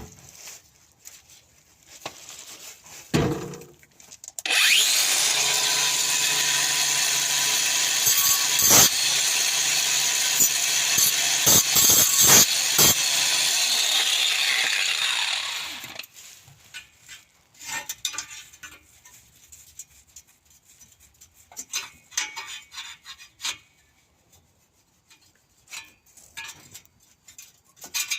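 A hand disc cutter (angle grinder) spins up and cuts through the old rusty exhaust pipe for about eleven seconds, with sharp knocks as the disc bites, then winds down. Scattered metallic clanks and rattles follow.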